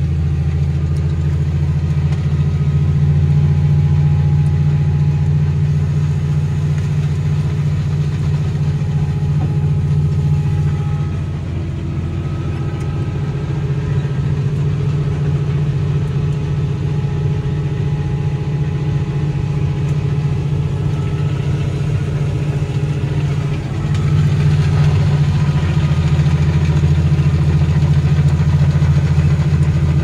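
Big Fendt tractor's engine running steadily under load, driving a wood chipper, heard from inside the cab as a loud, even drone. The drone drops a little about a third of the way through and rises again after about two-thirds.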